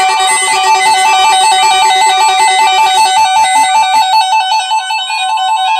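Electronic music with a lead line trilling rapidly between two notes, about four changes a second, over steady held chords; a low held note drops out about three seconds in.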